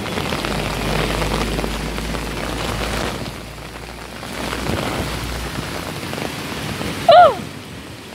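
Heavy rain pouring onto pavement and street, a steady hiss, with a low rumble under it through the first half. About seven seconds in, a short, loud, high-pitched cry slides down in pitch.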